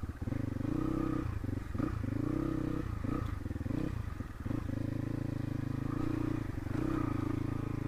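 Crossfire RM250 dirt bike's single-cylinder engine running at low revs while ridden slowly over a rutted, muddy track. The engine note dips and picks up several times in the first half, then runs steadily.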